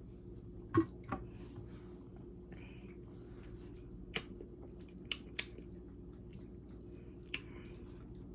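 A person quietly sipping and tasting lemon-lime soda: a few soft mouth clicks and smacks, the sharpest about a second in, with a short hiss near three seconds, over a low steady hum.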